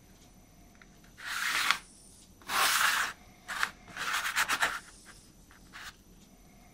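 Hands at work on a small wooden part: several short rubbing and scratching noises, with a quick run of rapid scratches about four seconds in.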